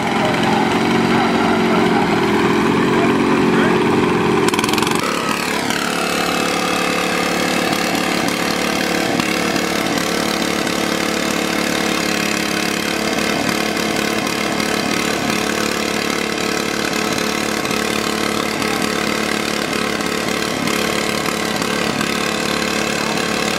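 Modified riding lawn mower engines running, loudest for the first few seconds, then a falling whine about five seconds in as the revs drop and they settle to a steady idle. People talk in the background.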